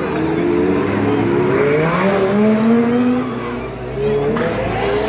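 Red Ferrari 360's V8 engine revving hard as the car accelerates away past the crowd, its pitch rising over the first few seconds. It dips briefly about four seconds in, then climbs again.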